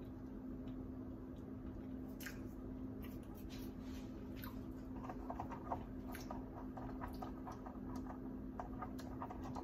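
Close-miked wet chewing and mouth sounds of someone eating grilled cheese and tomato soup, with scattered small clicks that grow more frequent about halfway through. A steady low hum runs underneath.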